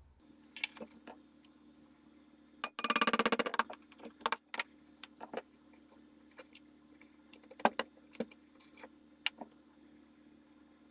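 Small steel rear-sight parts of a Mauser 98 rifle clicking and clinking as they are taken apart by hand. A quick rattling run of clicks comes about three seconds in, followed by scattered single clicks, over a faint steady hum.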